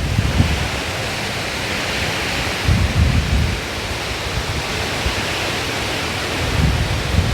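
Steady wind and rain hiss from storm remnants, with low rumbling gusts hitting the microphone a few times, about three seconds apart.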